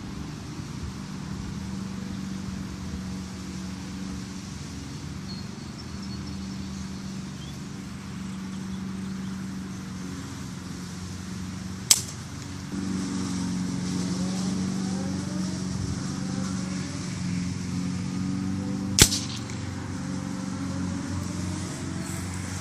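Two single gunshots about seven seconds apart from a gun being sighted in, each a sharp crack, over a steady low hum.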